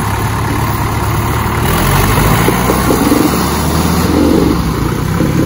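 Diesel tractor engine running loud and steady, growing a little louder about two seconds in.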